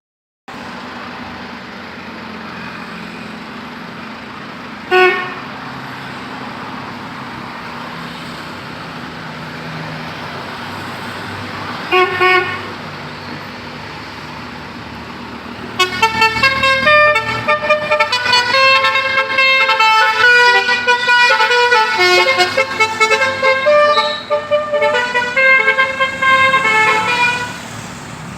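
Basuri musical car horn: two short blasts, then about twelve seconds of a quick melody of stepping horn notes, over steady road and engine noise.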